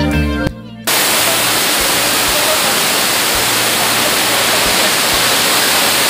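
Background guitar music cuts off about half a second in. Just under a second in, a waterfall's steady, loud rush of water begins and continues; the water is pouring down stepped rock ledges.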